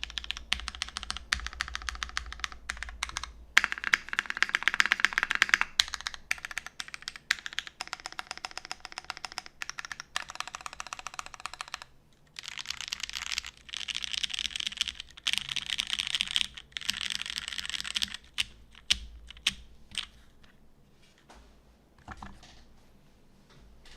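Custom mechanical keyboard with linear Cherry MX Black switches lubed with 205g0, mounted on an aluminum plate in an SBL case and fitted with DCS keycaps, being typed on: fast runs of keystrokes, then only a few separate key presses over the last several seconds.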